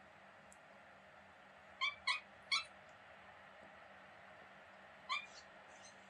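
Kitten making short, high-pitched beeping chirps: three in quick succession about two seconds in, then one more about five seconds in.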